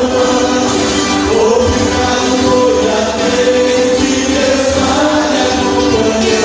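Music with voices singing together in long held notes, choir-like, over instrumental backing.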